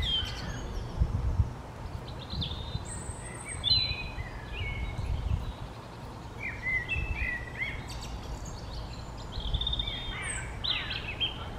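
Several songbirds singing and chirping in short, varied phrases, with a low rumble that swells and fades underneath.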